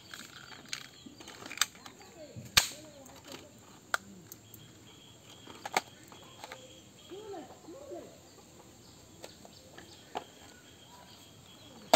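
Toy gun firing: sharp cracks at irregular intervals, about five loud ones with smaller clicks between.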